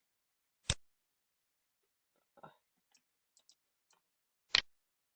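Computer mouse clicking. There is one sharp click about a second in, a few faint ticks, then a quick double click near the end.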